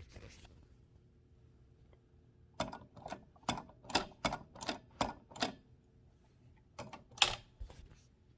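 1925 Mignon 4 index typewriter's impression key and linkage, with the carriage removed, being worked by hand. It makes a quick run of about a dozen sharp metal clacks, three or four a second, and after a short pause a few more, one of them the loudest.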